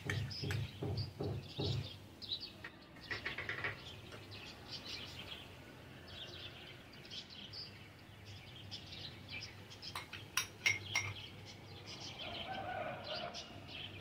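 Small birds chirping intermittently in the background. In the first two seconds a spoon taps and scrapes paste out of a small bowl over a metal pot, and a few sharp clinks come about ten seconds in.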